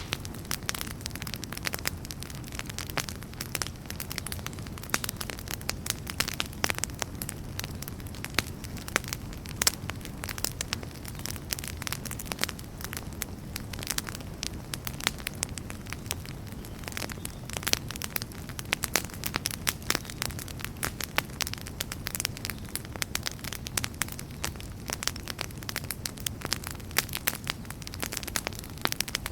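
Wood campfire burning, crackling and popping with many irregular sharp snaps over a steady low rumble of the flames.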